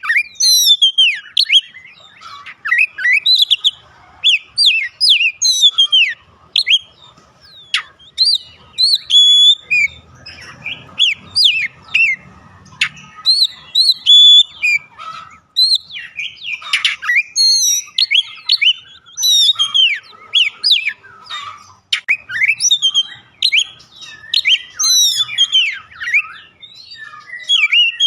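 Oriental magpie-robin (kacer) singing a long, varied song of loud whistled phrases, many of them sweeping down in pitch, broken by short pauses. This is the bird in full song, the kind of recording used as a trigger to set other magpie-robins singing.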